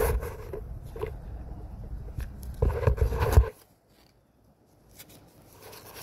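Handling and rustling noise with wind rumble on the phone's microphone, which drops away suddenly about three and a half seconds in, leaving a few faint rustles and clicks, as someone searches for a receipt.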